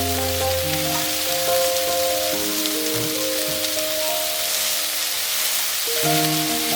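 Shrimp and mung bean sprouts sizzling as they stir-fry in a hot pan, a steady hiss, under a gentle melody of background music.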